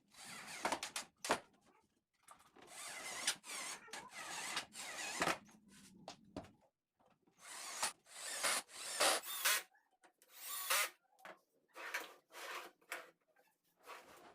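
Power tool running in short bursts with brief pauses between them, with a few sharp clicks among them.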